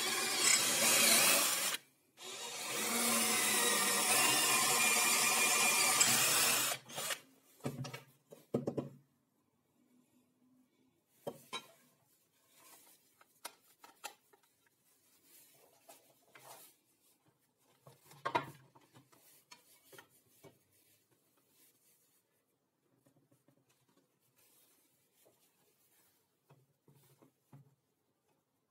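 Cordless drill boring through a thin steel plate with a twist bit, in two loud spells of a few seconds with a brief break between. After that, a few scattered knocks and taps as a jigsaw and plywood are handled on a wooden bench.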